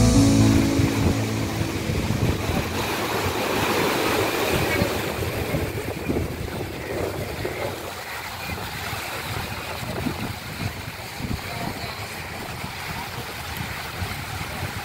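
Sea waves washing and splashing against concrete tetrapods on a seawall, with wind buffeting the microphone.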